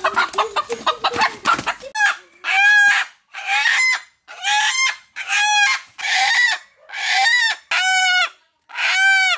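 Rooster squawking in alarm as it is caught and held: short rapid clucks, then about eight loud squawks, roughly one a second, each rising and falling in pitch.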